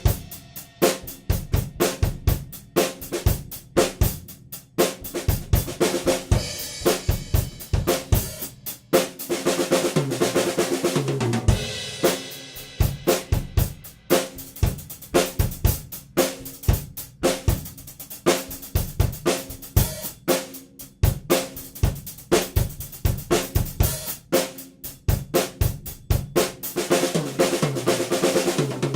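Gretsch Catalina drum kit played continuously: kick, snare, hi-hat and cymbals in a steady groove, with fills where lower drums ring and fall in pitch.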